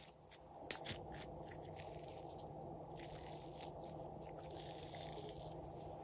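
Glossy slime being squeezed and stretched by hand: a sharp sticky pop about a second in as an air pocket bursts, then faint soft crackling and squishing as the slime is folded and pulled.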